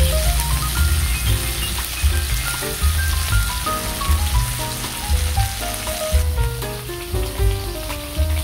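Chicken breasts sizzling in hot oil in a frying pan, under background music with a stepping melody over a heavy bass line. The sizzle stops about six seconds in while the music goes on.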